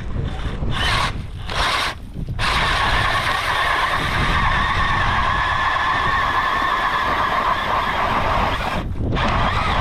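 Cordless drill spinning an ice auger through lake ice. Two short bursts, then a steady whine of drilling that stops briefly near the end and starts again.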